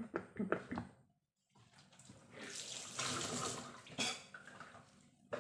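Water running from a tap into a sink. It builds up over a second or so, runs steadily and then eases off, after a few short knocks of handling in the first second.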